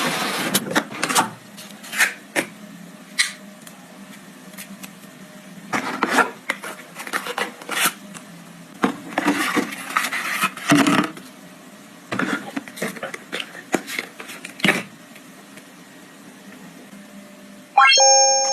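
Phone box and packaging handled during an unboxing: irregular clicks, taps and short bursts of rustling from cardboard and plastic. Near the end a short electronic tone sounds briefly.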